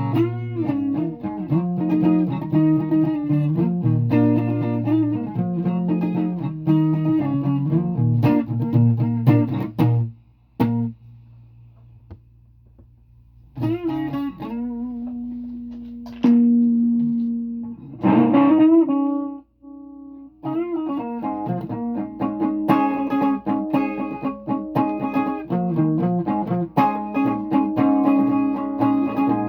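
Guitar played with plucked notes and chords. About ten seconds in it thins to a few quiet held notes, then picks up again, with one note sliding up in pitch a little past halfway before the steady playing resumes.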